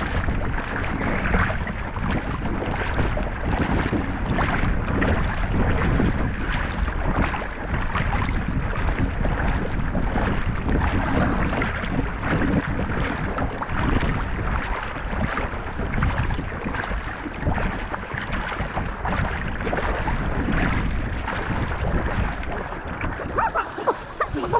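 Front-crawl swimmers' arm strokes and kicks splashing in choppy sea, with water sloshing close up and frequent irregular splashes throughout.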